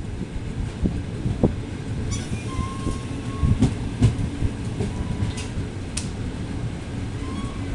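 Passenger train coaches rolling along the track: a steady low rumble with scattered wheel knocks over rail joints, and a faint, thin wheel squeal a few seconds in.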